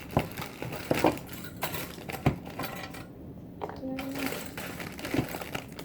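Small objects clicking, knocking and rattling as someone rummages through slime-making supplies, with a quieter pause about three seconds in.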